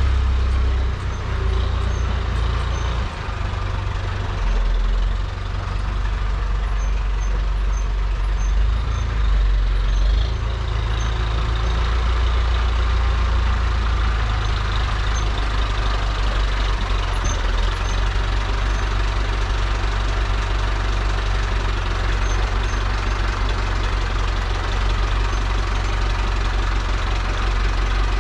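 Renault 70-34 tractor's diesel engine running. Its speed varies over the first ten seconds or so, then it settles to a steady run.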